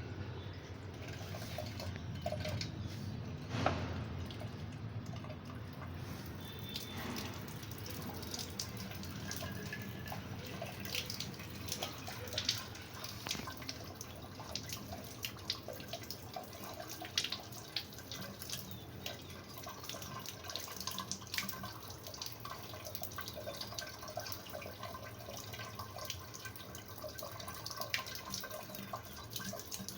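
Water running from a tap and splashing, with many small irregular drips.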